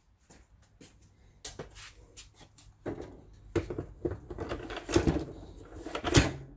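Clicks, knocks and plastic clatter of handling a Kobalt cordless chainsaw and its battery pack, with the two loudest knocks about five and six seconds in; the saw's motor is not running.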